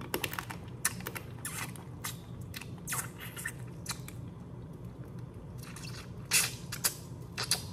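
Boiled crawfish being eaten close to the microphone: irregular cracking and snapping of shells pulled apart, with wet squelches and chewing. A louder burst comes a little past six seconds in.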